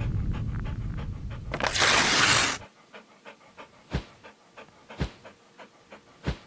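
A dog panting quickly and rhythmically. Under it, a loud low rumble carries a bright whoosh about two seconds in, then cuts off, leaving the quieter panting and a few sharp clicks.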